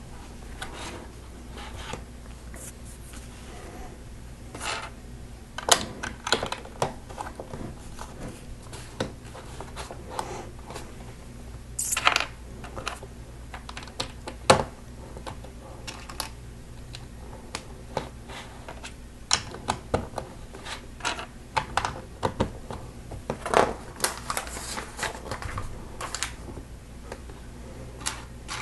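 Plastic LEGO bricks and plates clicking and tapping as they are pressed together and handled, in irregular sharp clicks over a low steady hum.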